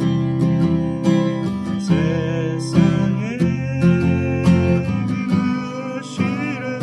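Steel-string acoustic guitar strummed in a steady sixteenth-note (16-beat) rhythm through chord changes, with a man's voice singing along.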